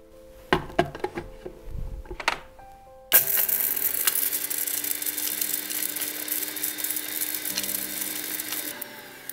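Electric mixer grinder (mixie) running, grinding whole black pepper, cloves, cardamom and ginger into powder: it starts suddenly about three seconds in and runs steadily for nearly six seconds before stopping near the end. A few knocks and clinks come before it starts.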